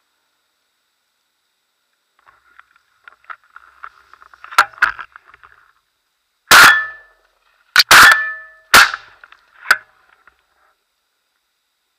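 Shotgun fired several times in quick succession at a flying pigeon, very loud and close from a camera mounted on the gun, the last shot quieter. Before the shots, a faint patter of small clicks.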